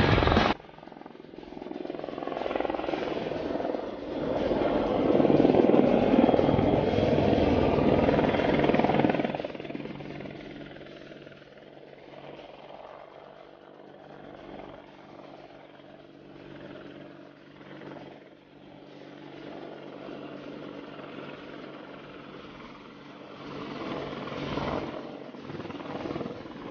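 AH-64 Apache helicopter flying past. Its rotor and engine noise grows loud for several seconds, drops to a quieter, steady drone with faint steady tones, and swells again near the end.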